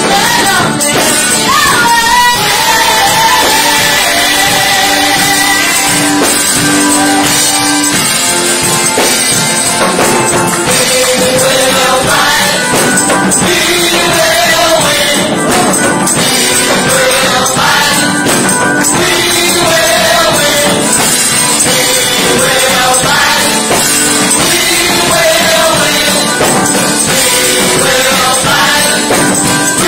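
Live gospel praise-and-worship music: a group of singers with microphones singing over band accompaniment, loud and continuous.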